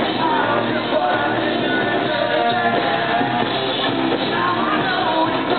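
Live rock band playing with a male lead singer singing into the microphone.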